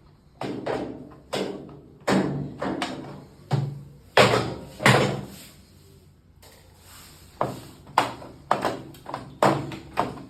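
A series of hard knocks and bangs during work on a washing machine, about fifteen hits in irregular groups with a pause of about two seconds in the middle.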